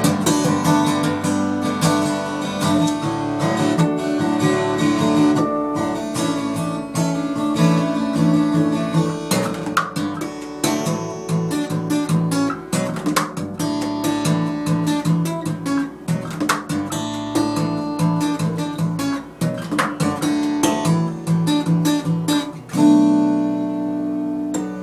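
Taylor acoustic guitar played solo, a run of picked notes and chords. Near the end a loud strummed chord is left to ring out and fade.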